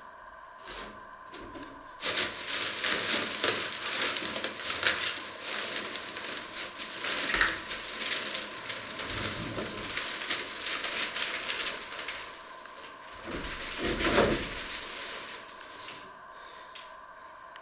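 Plastic packaging wrap crinkling and rustling as a wrapped item is lifted out of a cardboard box. The crackle starts about two seconds in and stops near the end, with a duller rubbing swell shortly before it stops.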